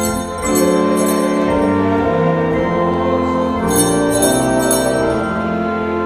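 Church organ holding sustained chords while a set of small altar bells is shaken in repeated peals, twice in full and once briefly at the very start.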